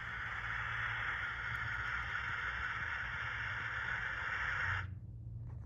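Steady steam hiss played by the sound decoder of an HO scale NSWGR 38 class steam locomotive model. It cuts off suddenly about five seconds in, over a constant low hum.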